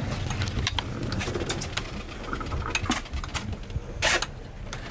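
Scattered clicks and knocks of gear aboard a sailing yacht under way, over a low rumble of boat and wind noise, with one louder short rustling burst about four seconds in.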